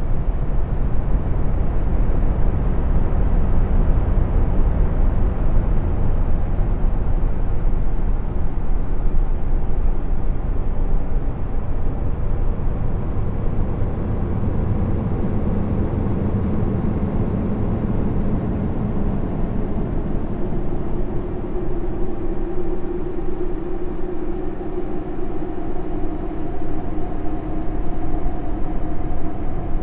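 Space-ambience drone presented as the sound of Jupiter's moon Callisto: a steady low rumble with faint held tones that drift slowly in pitch. A clearer pair of tones comes in past the middle.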